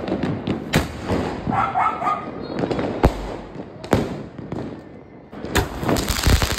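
Fireworks and firecrackers going off: continuous crackling with several sharp bangs, the loudest about three seconds in, about four seconds in and near the end.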